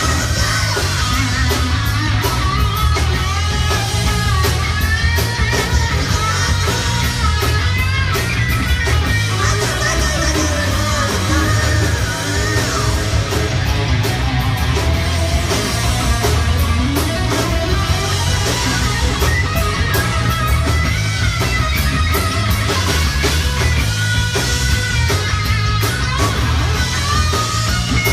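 Rock band playing live at a sound check: loud, heavy electric guitar over a strong low end, without a break.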